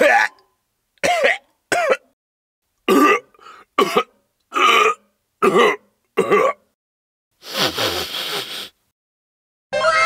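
A person's voice gagging and retching in about eight short heaves, then a longer, noisier spew of vomiting: a gross-out sound effect for a sick face. A brass-like note starts just at the end.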